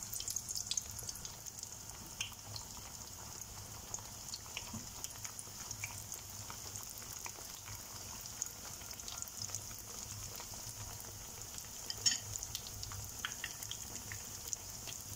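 Rounds of pişi dough frying in hot oil in a frying pan: a steady high sizzle with scattered small crackles and pops, and a louder burst of crackling about twelve seconds in.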